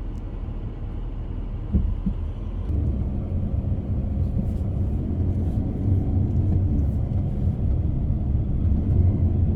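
Road and engine noise heard inside a moving car's cabin: a steady low rumble that grows a little louder about two seconds in.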